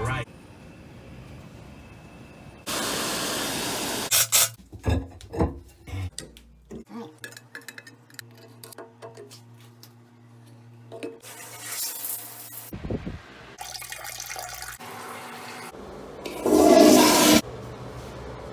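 Rushing water in short bursts that start and stop abruptly, with a cluster of knocks and clicks a few seconds in.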